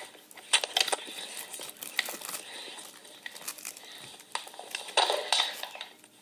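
Rustling and clicking handling noise from a recording device being moved around, with bursts about half a second in and again around five seconds in.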